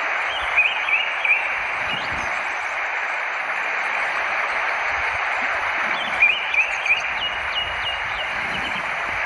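Running water rushing steadily, with a bird chirping over it in short quick notes: a cluster about half a second in, and another from about six seconds in that ends in a few fast falling notes.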